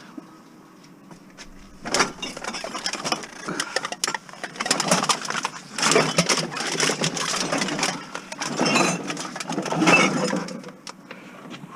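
Rummaging and handling noise: a dense run of knocks, scrapes and rustling that starts about two seconds in and goes on to near the end.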